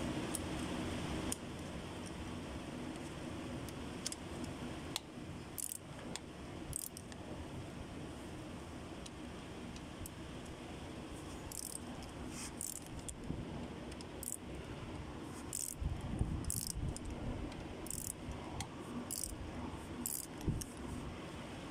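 Socket wrench working the connecting rod cap bolts of a Cummins QST30 diesel, loosening a cap to read the bearing clearance: short bursts of metal clinking and clicking, with a couple of dull knocks later on, over a steady background hum.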